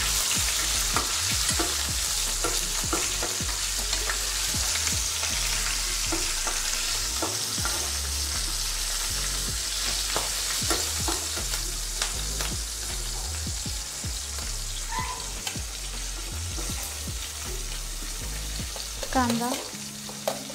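Hot oil sizzling in a pan as a tempering of cumin, garlic, asafoetida, curry leaves and green chillies fries. A steel ladle scrapes and taps the pan as it is stirred. The sizzle eases slightly toward the end.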